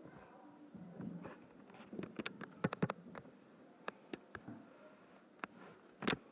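Quiet room tone with a scatter of short, sharp clicks and taps: a quick run of them about two to three seconds in, a few single ones after, and a louder click near the end.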